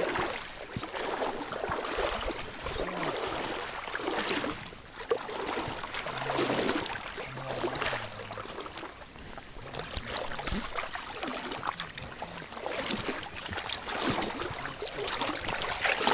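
River water splashing and sloshing in irregular surges as a hooked fish thrashes at the surface and is scooped into a landing net.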